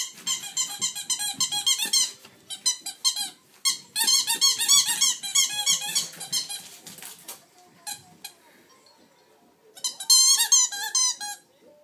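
Squeaky dog toy squeaking rapidly, several squeaks a second, as a Cardigan Welsh corgi chews it. The squeaks come in runs, stop for about two seconds late on, then start again.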